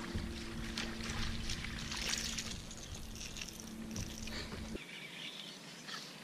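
Splashing and handling noises as a small smallmouth bass is reeled to the boat and lifted out of the water, over a steady low hum that cuts off abruptly about five seconds in.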